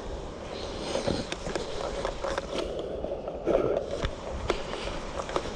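Footsteps on rough ground with rustling of clothing and gear, in irregular steps.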